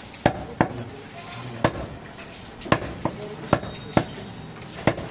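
Heavy cleaver chopping goat meat on the bone against a wooden stump block: about eight sharp chops at an uneven pace.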